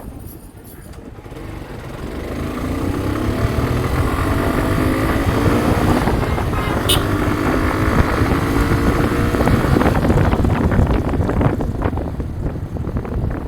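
A motorcycle engine running on the move, getting louder about two seconds in, its pitch rising and falling as it changes speed, with wind on the microphone.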